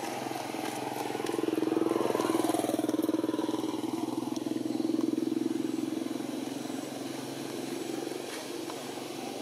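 A motorcycle engine running steadily, getting louder a second or so in and easing off over the last few seconds.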